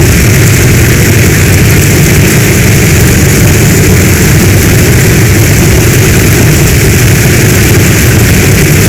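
Heavy storm rain: a steady, loud hiss of downpour over a deep, unbroken rumble.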